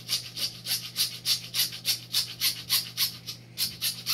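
Hacksaw cutting through PVC pipe: quick, even back-and-forth strokes, about four a second, each a rasping hiss.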